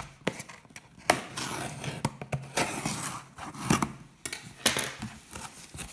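Cardboard box being opened by hand: a knife slitting the packing tape and the paper label tearing along the seam, then cardboard flaps scraping and rustling open, heard as an irregular run of sharp clicks and scrapes.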